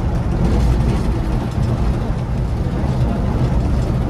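Steady low rumble of a Scania coach on the move: engine and road noise, even and unbroken.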